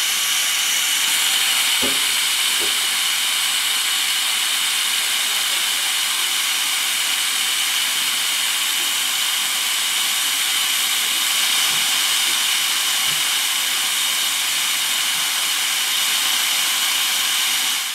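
High-speed dental air-turbine handpiece cutting with its water spray on, together with high-volume suction: a steady hiss with a high whine. The bur is breaking through the contact between the upper first molar and its neighbour.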